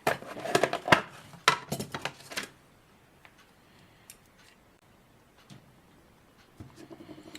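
Small metal parts and tools clicking and clinking as they are handled on a workbench: a quick run of sharp clicks in the first couple of seconds, then only a few faint ticks.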